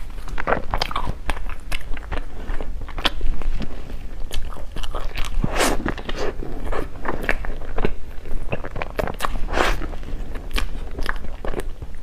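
Close-miked eating: wet chewing with many small irregular mouth clicks and crunches, plus a few longer hissing smacks.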